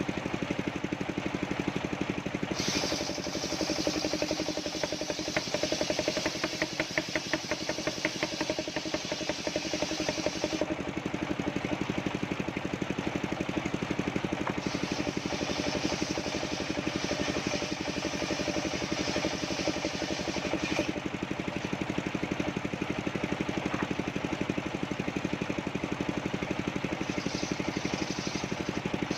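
Engine of a mobile circular sawmill running steadily with an even firing beat, while the saw blade cuts coconut wood in stretches, adding a higher hiss that starts and stops several times.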